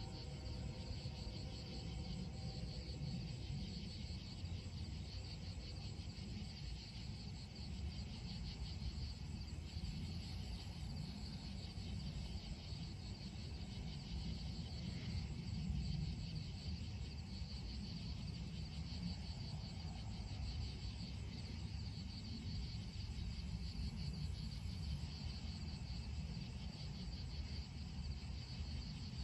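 Night chorus of insects, a steady high-pitched pulsing chirr, over a constant low rumble.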